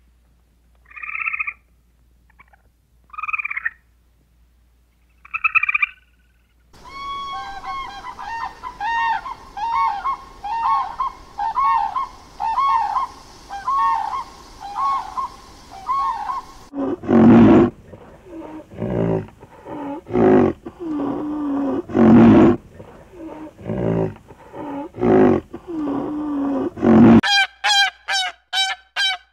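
A run of different animal calls. First a grey squirrel gives three short, high squeaks. Then a common crane calls in a long run of quick, repeated notes, followed by about ten seconds of louder, deeper calls, and near the end a black swan calls in a fast honking series.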